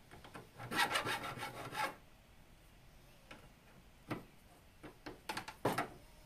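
Square hand file rasping along the notched edge of a composite steel adaptor plate, taking off burrs and sharp edges. A quick run of strokes comes about a second in, then a few single strokes.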